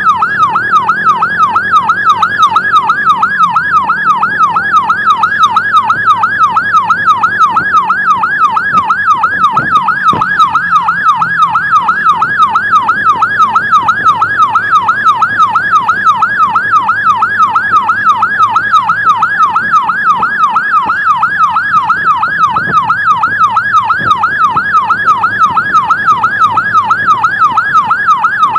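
Electronic emergency siren sounding in a fast yelp, its pitch sweeping up and down about three times a second without a break. In the first few seconds a second, lower siren tone glides downward, and a low road and engine rumble runs underneath.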